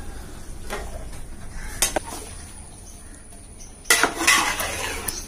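Metal clinks of a ladle against a large aluminium cooking pot: a few light clinks, then a louder clatter about four seconds in.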